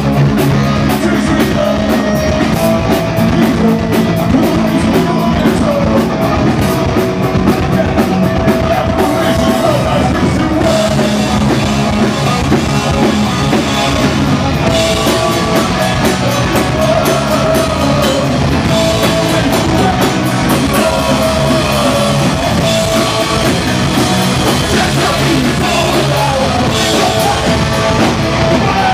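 Live punk rock band playing loud: electric guitars, bass guitar and a drum kit with steady cymbal strokes, under a sung vocal line.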